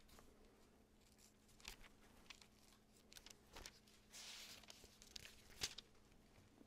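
Faint rustling of thin Bible pages being turned by hand, with scattered small clicks and taps, a short rustle about four seconds in and a sharper click shortly after, over a faint steady hum.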